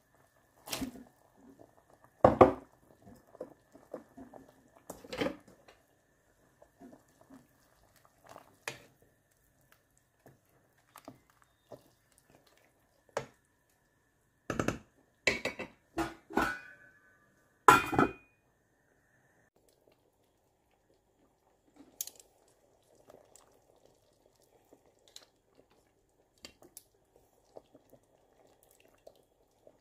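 Metal cookware and utensils clanking in a kitchen: a scatter of sharp knocks, some ringing briefly, thickest in a quick cluster around the middle, then only faint light ticks.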